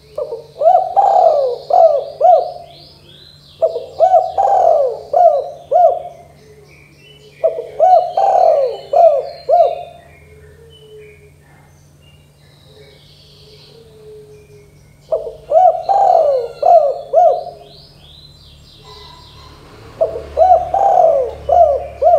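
Spotted dove (tekukur) cooing: five phrases, each a quick run of several rising-and-falling coos, with a longer pause in the middle.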